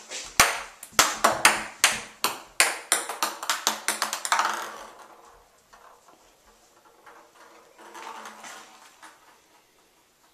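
Ping pong ball bouncing and skittering on a bathtub's hard floor, batted about by a kitten: a quick, uneven run of sharp clicks for the first four seconds or so, trailing off into a rolling rattle, then a few soft taps near the end.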